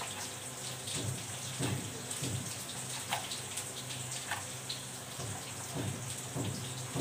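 Kitchen knife cutting folded pastry sheets into thin strips on a cutting board: irregular knocks of the blade against the board, roughly one or two a second, over a steady low hum.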